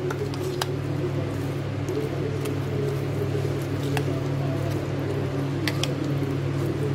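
A hand squelching yogurt-coated eggplant slices and spices together in a glass bowl, with a few light clicks, over a steady low hum.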